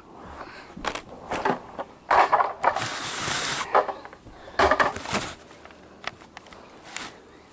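Small plastic toys and play-set pieces being handled, with irregular rustling, scraping and clicking. The longest rustle comes about two to four seconds in.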